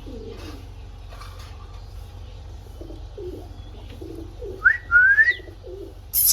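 Parrots calling: short low cooing notes repeat over a steady low hum, then two loud rising whistles come about four and a half seconds in and a harsh screech near the end.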